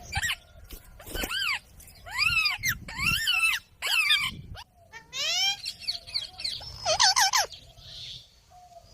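Indian ringneck parrot calling: a run of short, harsh squawks, each rising and falling in pitch, about a dozen in quick succession with brief pauses.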